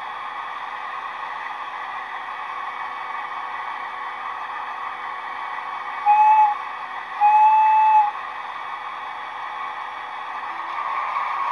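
Sound decoder in a model FS D345 diesel locomotive, played through the model's small speaker: a steady diesel engine running sound, with two blasts of the real locomotive's warning whistle about six seconds in, a short one and then a longer one.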